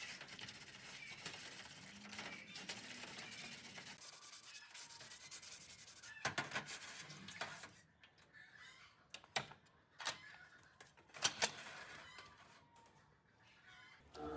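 Hand work on metal ceiling fan parts: rubbing and scraping for about eight seconds, then several separate sharp clicks and knocks.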